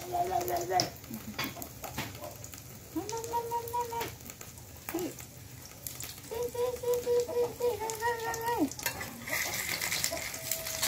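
Food sizzling in a metal wok while a metal spatula stirs and scrapes it, clacking now and then. Over it a baby monkey gives about four drawn-out, even-pitched calls, the longest a couple of seconds past the middle.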